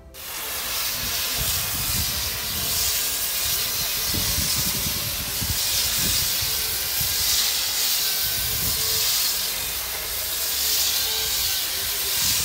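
Angle grinder with an abrasive disc grinding old epoxy paint off a wooden boat hull down to bare wood. It runs as a loud, steady hiss that starts suddenly.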